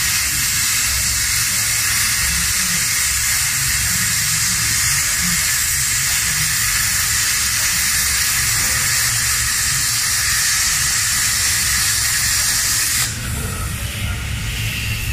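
Handheld plasma cutter cutting through 20 mm mild steel plate: a loud, steady hiss of the arc and air jet. It cuts off about 13 seconds in as the arc stops, leaving a fainter hiss.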